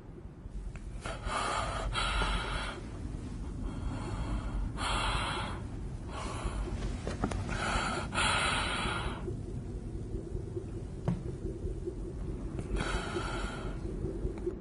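A person gasping and breathing hard: several breaths with pauses between, the last near the end, over a low steady rumble.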